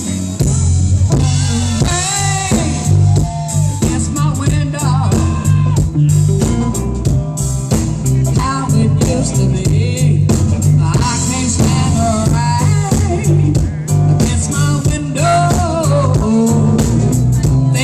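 Live blues band playing a slow groove: drum kit keeping a steady beat over a repeating electric bass line, with guitar and a bending lead melody above.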